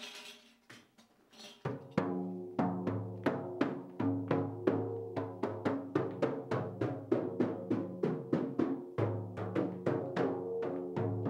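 Large hand-held frame drum beaten in a steady rhythm, starting after a short pause about two seconds in; each stroke leaves a low, resonant ring.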